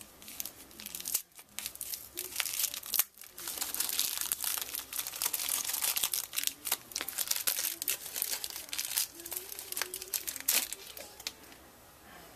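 Packaging crinkling and rustling as it is handled and pulled apart, with many sharp little crackles and clicks. It is busiest from about two seconds in until near the end.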